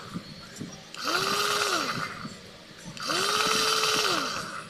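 Electric food processor (meat grinder) motor and chopping blade, with the bowl empty. It is pulsed twice, each time whirring up to speed, holding for about a second and winding back down.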